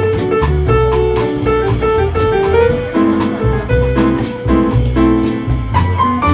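Jazz being played, with piano and drum kit: sustained piano notes over a moving low line and a steady beat of drum and cymbal strikes.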